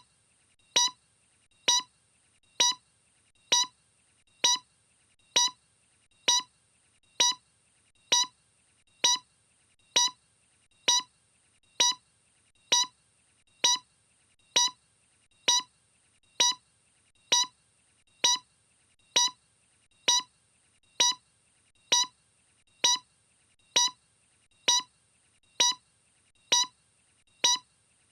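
A short, sharp electronic pulse repeating evenly about once every 0.9 seconds, with quiet between each one.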